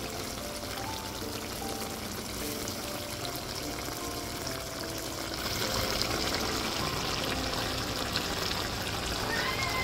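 A pot of chicken legs and onions cooking in liquid, bubbling and hissing steadily. The sound gets louder and more hissy about halfway through.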